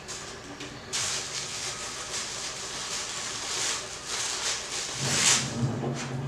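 Packing material rustling and crinkling in the hands as a statue part is unwrapped, starting about a second in.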